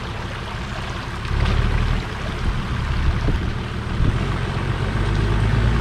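A 4x4's engine running as it wades through a river, over the rush of the water around it; the engine grows louder in the last couple of seconds.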